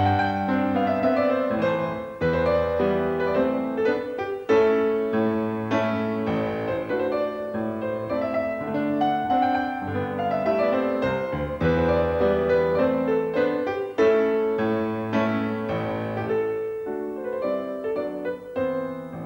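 Background piano music: a steady flow of melody and chords.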